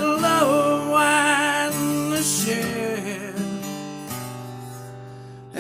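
Acoustic guitar and singing: a held sung note with vibrato over strummed guitar chords for the first couple of seconds, then the guitar alone, changing chord about four seconds in and ringing out toward the end.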